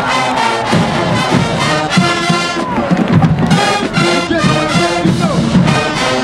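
Marching band playing: massed brass (trumpets and trombones) over a steady drum beat.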